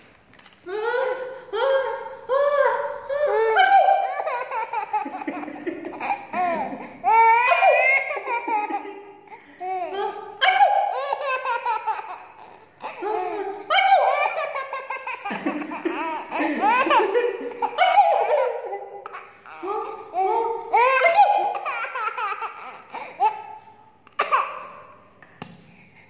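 A baby laughing in repeated high-pitched peals, one after another, tailing off near the end.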